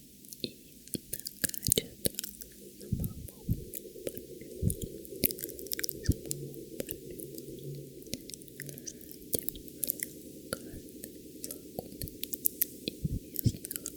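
Close-miked ASMR mouth sounds: wet, sticky clicks and smacks of the lips and tongue, coming irregularly several times a second.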